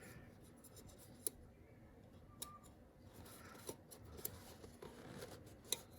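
Faint handling noises with a few sharp small clicks as a new rubber seal is worked onto the oil filter housing cap by hand.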